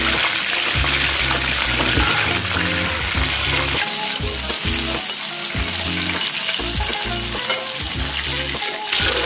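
Flour-coated chicken pieces deep-frying in hot oil, a steady crackling sizzle, at the end of about 15 minutes' frying when the chicken is cooked through.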